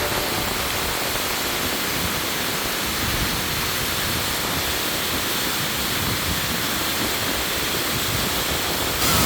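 Waterfall: a steady rush of falling water with no pitch or rhythm. Just before the end the sound abruptly turns brighter and a little louder.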